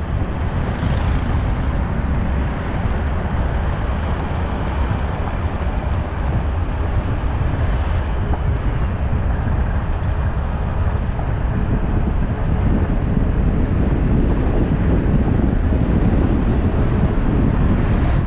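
Steady road noise of a vehicle being driven on city streets: an even, deep rumble with no breaks.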